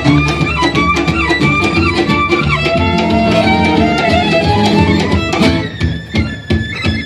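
Live gypsy-fusion band music: a violin plays the melody over guitar and percussion. The playing thins out briefly near the end.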